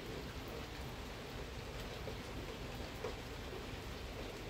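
Light rain falling: a steady hiss with faint scattered pattering.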